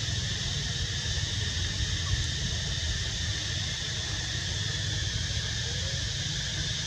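Steady outdoor background noise: a constant hiss with a low rumble, and no distinct animal calls.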